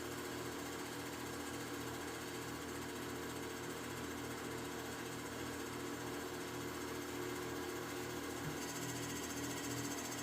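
Foundry sand muller running steadily, churning moist sand and clay in its drum, with a steady machine hum; a higher hiss joins near the end.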